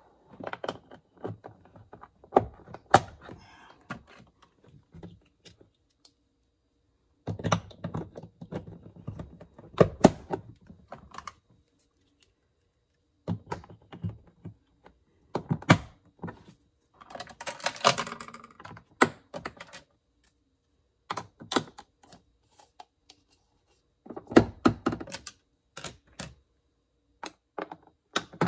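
Plastic hooks being snapped into a plastic toy play-truck wall and plastic toy utensils hung on them: clusters of quick plastic clicks and knocks with short pauses between, and a brief scrape of plastic about two-thirds of the way through.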